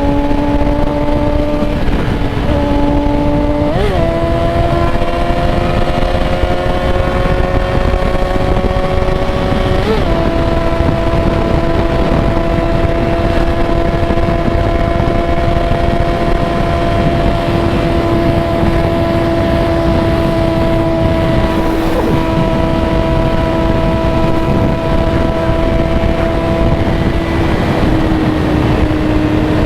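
Yamaha XJ6 inline-four motorcycle engine under way, heard from the rider's own bike over heavy wind rush: its note climbs in two steps around four and ten seconds in, then holds steady at cruising speed, easing off slightly near the end.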